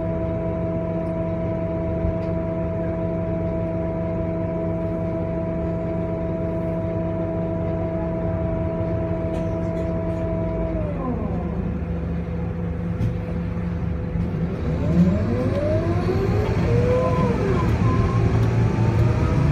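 Scania K230UB bus's five-cylinder diesel idling with a steady hum of several tones, which fall away about eleven seconds in. From about fifteen seconds the engine revs and the bus pulls away, louder, its pitch rising and falling, with a faint rising whine.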